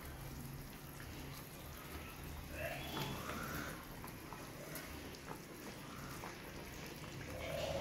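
Fish curry simmering in a kadai, a faint bubbling with light clicks and scrapes of a steel spatula in the gravy. A brief call in the background about three seconds in.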